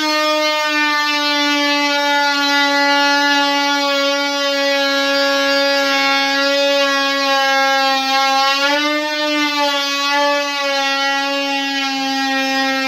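A handheld power tool, such as an oscillating multi-tool, runs while cutting into the wooden vanity cabinet, giving a loud, steady high drone. Its pitch wavers around the middle.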